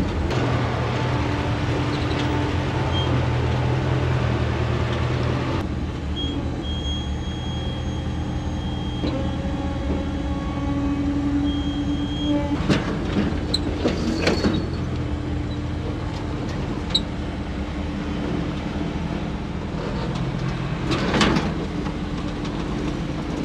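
An off-road rig's engine running at low revs with a steady hum as it crawls down a rocky trail. A few short creaks and scrapes come about halfway through and again near the end.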